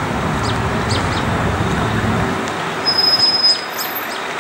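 Steady road traffic noise, its low rumble easing about two seconds in, with birds chirping over it: short high falling chirps, several in a row, and a thin high whistle about three seconds in.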